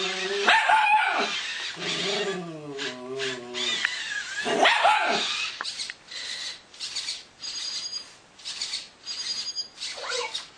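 A puppy barking and yipping, with drawn-out wavering cries in the first half. From about the middle on, a run of short sharp sounds, two or three a second, with faint high tones.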